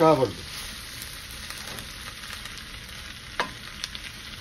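Potatoes and onions sizzling in oil in a wok, stirred and scraped with a wooden spatula. There are a couple of sharper clicks of the spatula against the pan about three and a half seconds in.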